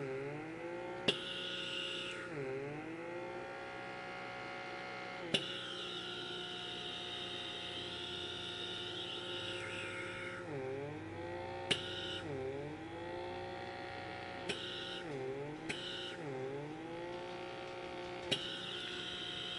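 Small battery-powered blackhead remover vacuum's suction motor whirring steadily. Its pitch dips and recovers about eight times as the nozzle grips and pulls on the skin. Sharp clicks come every few seconds.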